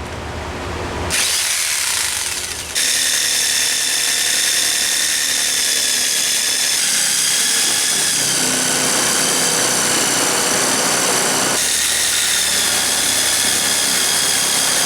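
Electric angle grinder cutting into a steel bracket. It runs with a steady, high-pitched whine that comes in about a second in, strengthens just before three seconds, and shifts in pitch a few times as the cut loads it.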